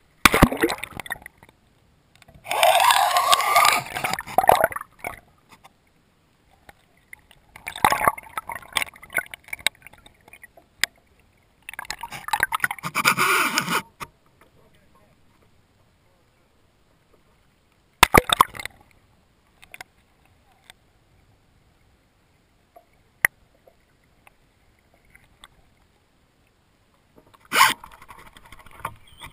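Water splashing and gurgling against a GoPro camera housing as it is dragged through the lake on a fishing line, in bursts of a second or two, about five times, with near silence between.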